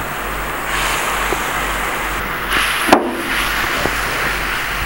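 Thin steak sauce of chicken stock, red wine vinegar and brown sugar bubbling and sizzling hard in a pan, with one sharp clack about three seconds in.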